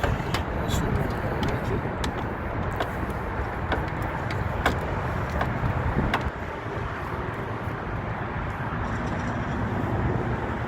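Steady outdoor background noise with a series of light clicks and taps, roughly one a second, during the first six seconds.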